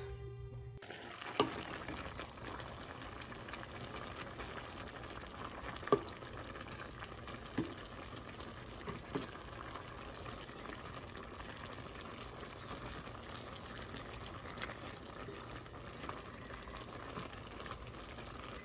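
A pot of ground-meat, bean and vegetable stew simmering with a steady soft bubbling, and a ladle stirring it that knocks against the pot a few times.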